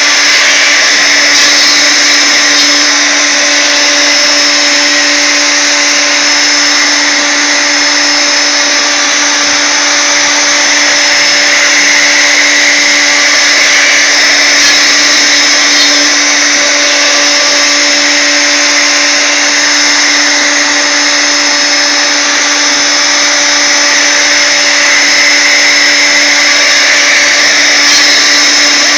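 Router motor of a CNC router spinning a small ball-nose bit through softwood on a finishing pass: a steady, loud whine with a constant hum beneath it.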